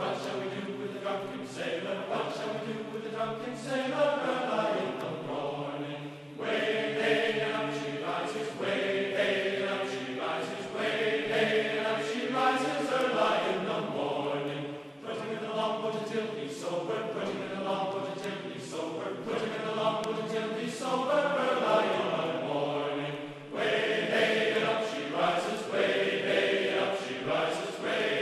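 Background music of chanting voices, choir-like held notes that move from pitch to pitch, dipping briefly three times.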